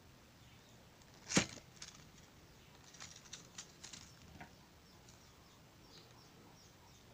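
Foil-wrapped Ferrero Rocher chocolate being handled and lifted out of its paper cup: one sharp knock about a second and a half in, then a few seconds of light crackling and rustling of gold foil and paper.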